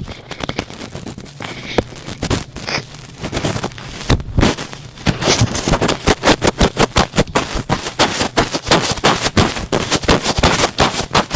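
Thick cotton swab rubbed and pressed right against the microphone in ear-cleaning ASMR, making close crackling and squishy scrunching. The strokes grow faster and louder about five seconds in, several to the second.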